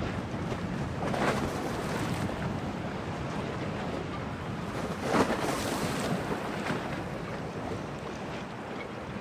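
Storm waves washing and splashing in a harbour under strong wind, with a steady rush of water and wind. Two louder splashes break through, about a second in and just past the middle.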